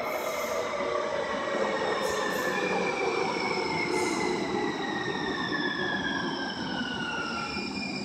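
Two-car Siemens S200 light-rail train pulling into an underground station and slowing, with a whine that falls steadily in pitch and steady rolling noise from the wheels on the rails; a few short high squeals.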